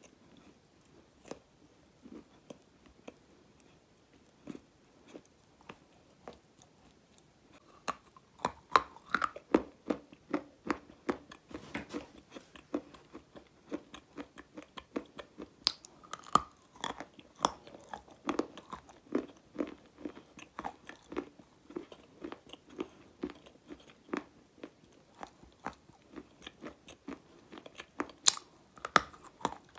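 Close-miked biting and crunching of hard grey clay-like chunks: a few faint mouth clicks at first, then from about eight seconds in a dense run of sharp crunchy bites and chewing.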